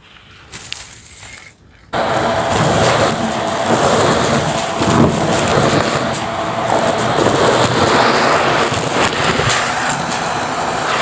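After a quiet opening with brief handling noise, a vacuum cleaner switches on about two seconds in and runs steadily, sucking a pile of loose debris off the carpet with a crackle of bits going up the nozzle.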